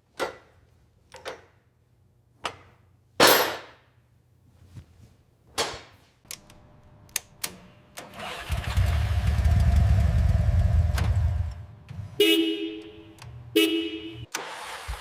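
A motorbike engine starts about eight seconds in and keeps running with a steady low rumble. Its horn sounds twice near the end. Before the engine starts there is a string of short, sharp sounds.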